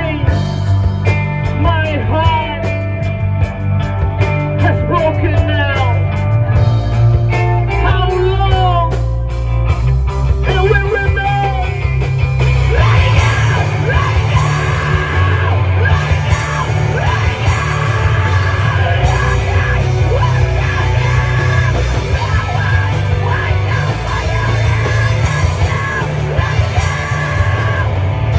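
Live hardcore punk band playing: a melodic passage with bending guitar notes over drums and rapid cymbal hits, then about twelve seconds in the full band comes in heavier and denser, with yelled vocals.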